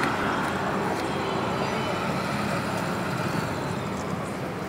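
Steady road traffic noise, an even rumble of passing vehicles.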